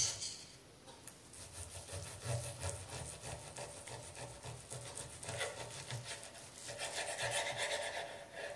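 A steak knife sawing back and forth through a cooked New York strip steak, the blade rasping on a wooden cutting board in repeated strokes that grow louder near the end.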